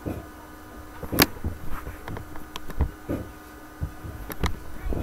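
Irregular sharp knocks and clicks over a faint steady hum, the sharpest knock about a second in.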